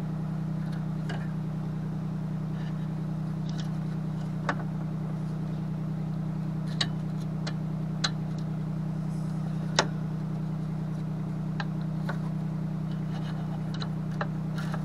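A steady low mechanical hum, with a few light sharp metallic clicks as MIG welding wire is fed by hand into the welder's drive roll and tensioner; the loudest click comes near the end.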